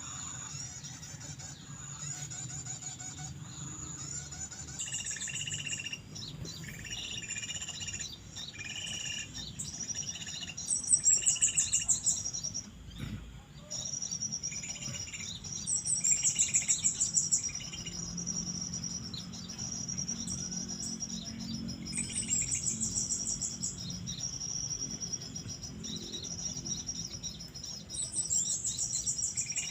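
Small songbirds calling: a bright, falling trill that comes back about every six seconds, with short chirping notes in between, over a steady high insect buzz.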